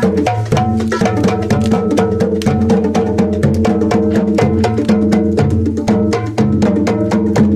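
Hand drums played in a fast, steady rhythm of dense, continuous strokes.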